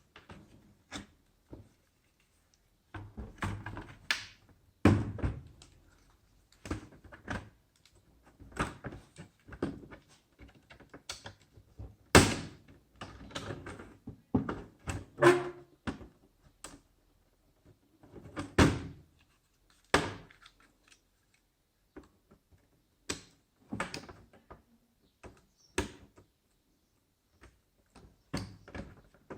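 Irregular knocks, clicks and thunks of hard objects being handled, tapped and set down, as when a laptop is worked on by hand. The loudest knocks come about 5, 12 and 19 seconds in.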